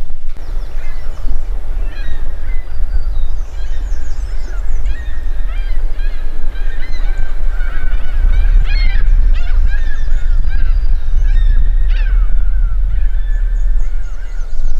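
Waterfowl calling: many short, overlapping calls, over a heavy low rumble of wind on the microphone.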